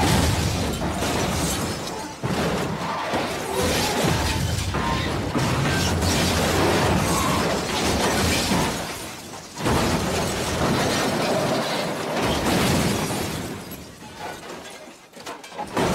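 Film sound effects of a car crash: a car sliding on its side and rolling over, with scraping, crunching metal and shattering glass in several loud crashes, dying down over the last couple of seconds.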